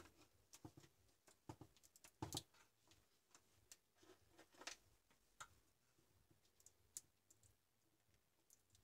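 Near silence broken by faint, scattered clicks and taps of hands handling wires and a pair of pliers inside a UPS's metal case.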